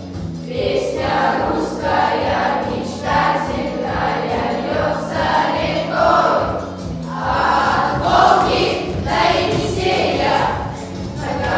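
A fifth-grade class of children singing together as a choir, with instrumental accompaniment under their voices.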